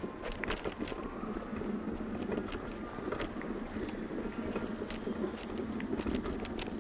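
Wheeled suitcases rolling across a hard tiled floor: a steady rumble from the wheels with irregular sharp clicks and knocks, over the general hubbub of a busy terminal hall.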